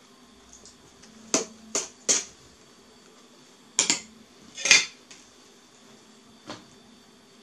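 A spoon clinking and scraping against a glass bowl and a metal cake pan while whipped cream is spread. There are about six short, sharp knocks: three in quick succession, two more a couple of seconds later, the loudest a brief scrape near five seconds in, and a faint one near the end.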